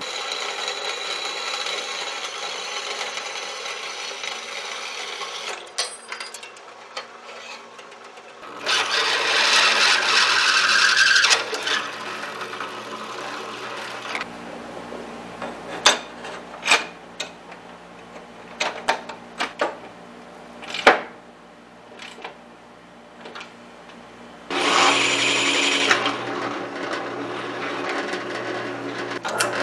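A vertical bandsaw cutting a metal plate, then a drill press boring holes through it. A louder stretch of cutting comes about nine seconds in, sharp clicks and knocks follow in the middle, and steady drilling returns near the end.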